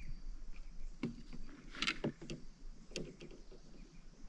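Irregular knocks and rustles from a freshly caught small cará being handled, clustered about one to three seconds in, with insects chirping faintly behind.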